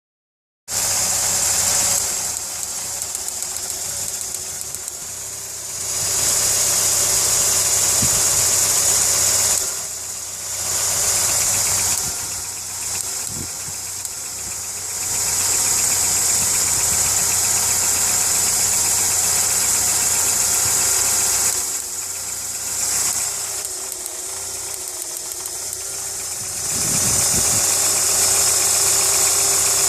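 VW Polo 6N2 1.0-litre (999cc) engine running, with a ticking noise whose cause the owner doesn't know. The level rises and falls in long stretches of several seconds.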